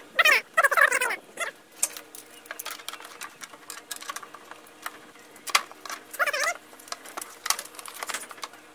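Sheet-metal case of a Hypertherm Powermax 45 plasma cutter being handled and fitted back on: scattered clicks and light knocks, with short squeaky chirps in the first second and a half and again about six seconds in.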